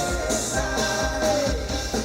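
Live band playing a bluegrass-instrument cover of a heavy metal song: plucked strings and a held melody line over a fast, steady drum beat.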